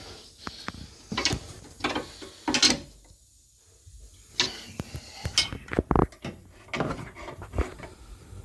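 Knocks and rattles from a Mini R53's rear suspension parts as they are grabbed and shaken by hand to check for play. The knocks come in irregular bursts, with a short quiet pause about three seconds in.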